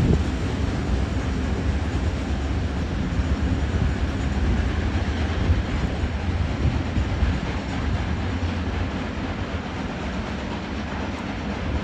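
Freight wagons loaded with steel coils rolling past on the rails, a steady low rumble of wheels and wagons that slowly fades as the end of the train moves away.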